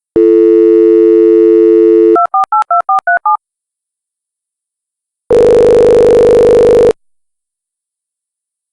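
Telephone dial tone for about two seconds, then seven quick touch-tone keypad beeps dialing a number. After a pause comes one ring of about a second and a half as the call connects.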